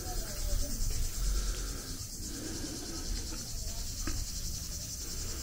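Insects shrilling steadily in a high, even, finely pulsing buzz, with a low rumble underneath.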